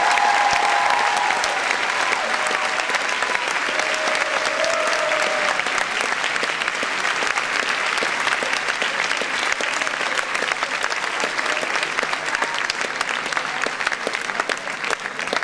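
A large audience applauding in a hall: dense, steady clapping that slowly fades towards the end.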